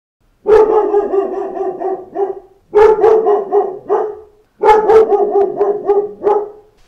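A dog barking in three quick runs of rapid barks, each run about two seconds long.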